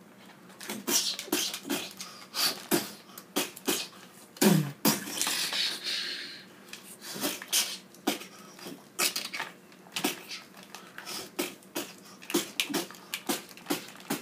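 Mouth-made fight sound effects: an irregular string of sharp clicks, pops and short hisses, several a second, with one longer whooshing burst about four and a half seconds in.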